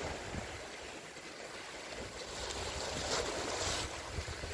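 Sea waves washing and breaking over breakwater rocks: a steady hiss of surf that swells up about two and a half seconds in and eases off near the end.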